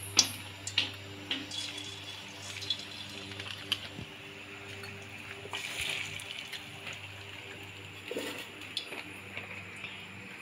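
Onion pakora batter sizzling as it deep-fries in hot oil in a kadhai, a steady hiss with scattered crackles and pops. The sizzle swells about six seconds in as more batter goes into the oil.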